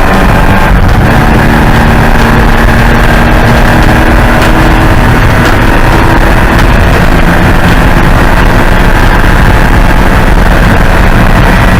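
Porsche 944's four-cylinder engine running hard under race load, very loud, its pitch drifting up and down as the revs change.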